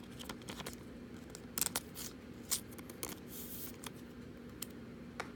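A foil trading-card pack being pulled from its cardboard box and torn open: scattered sharp crinkles and clicks of the wrapper, with a short rustling tear about three seconds in. A faint steady hum sits underneath.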